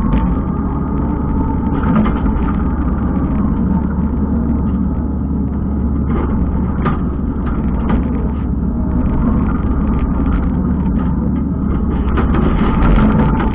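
Kubota skid steer's diesel engine running steadily under load, with a few sharp knocks and rattles.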